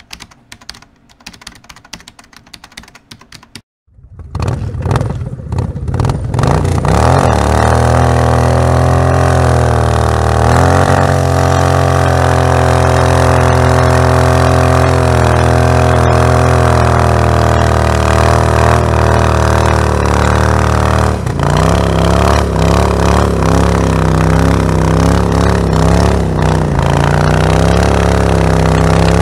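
Cruiser motorcycle engine held at high revs while its rear tyre spins in a smoky burnout. The engine comes in about four seconds in, rises quickly, then holds a nearly steady pitch.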